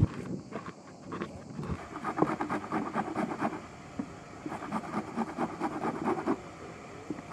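A round stone crushing walnuts in a wooden bowl, a few dull crunches; then, about two seconds in, a red onion grated on a metal box grater in quick rasping strokes with short pauses.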